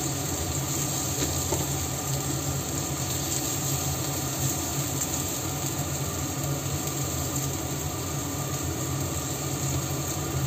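Minced garlic and lemon slices sizzling steadily in a little oil in a nonstick frying pan, over a constant low hum.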